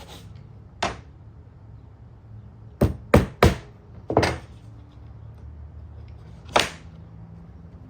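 Hammer blows on wood, about seven sharp irregular strikes, with three in quick succession near the middle, as a nail is driven.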